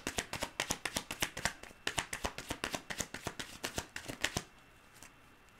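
A deck of divination cards being shuffled by hand: a quick, steady run of card clicks and slaps that stops about four seconds in.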